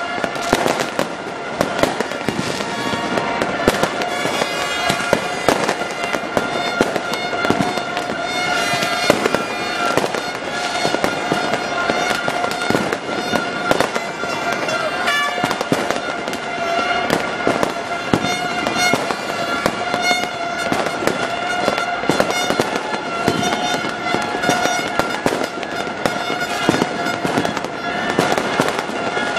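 Fireworks bursting and crackling in a dense, continuous barrage of bangs. A steady droning tone runs underneath throughout.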